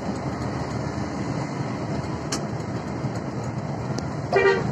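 Steady engine and road noise heard from inside a moving intercity coach, with a brief loud horn blast near the end.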